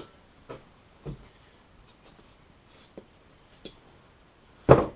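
A few faint, short knocks, then one loud, sharp thump near the end.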